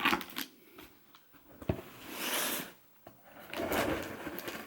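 Scissors cutting into a cardboard shipping box: a sharp snap about one and a half seconds in, then scraping, hissing strokes of the blade through tape and cardboard.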